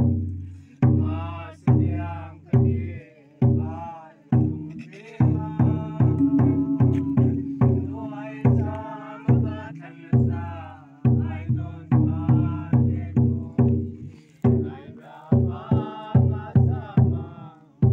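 A large wooden barrel drum beaten with a padded beater, each stroke a deep thump that fades out, keeping time for a group singing a traditional chant. The beat quickens for a few seconds in the middle, then settles back to a slower pulse.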